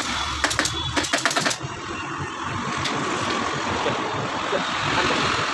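Pneumatic upholstery staple gun firing a quick run of about eight sharp shots in the first second and a half, then steady street traffic noise.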